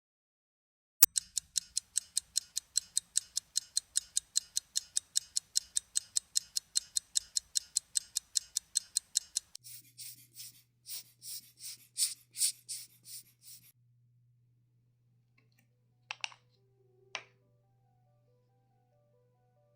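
Small Chaika 1200 mechanical watch ticking fast and evenly, about five ticks a second. About halfway through a low steady hum comes in, the ticks turn louder and uneven for a few seconds, and two single clicks follow near the end.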